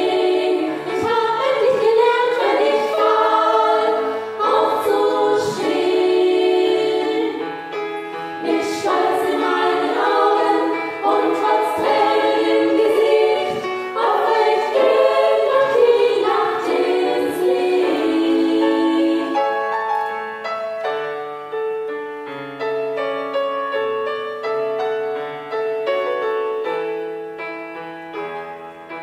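A six-voice women's vocal ensemble of sopranos, mezzo-sopranos and altos singing in harmony, with piano accompaniment. The singing grows softer about two-thirds of the way through.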